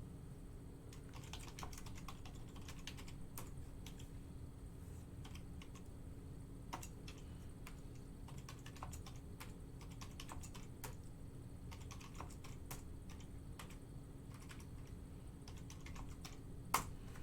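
Typing on a computer keyboard: scattered, irregular key clicks, with one sharper click near the end, over a steady low hum.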